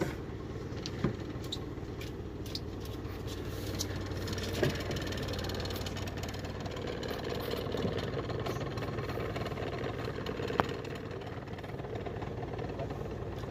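Fishing boat's engine idling steadily, with a few sharp clicks about a second in, near the middle and about three-quarters through.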